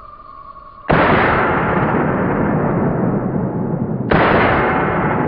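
Two 10mm shots from a Glock 20SF pistol, about three seconds apart, each a sudden blast followed by a long, drawn-out rumble.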